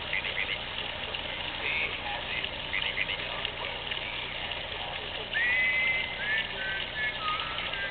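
Mechanical singing toy frog sounding: a few short chirps, then from about five seconds in a string of held notes, each lower than the one before.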